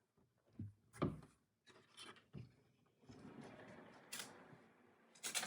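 A cat pawing and scratching at a closed door: a few light knocks, then a longer stretch of rubbing and scratching, with a sharper knock near the end.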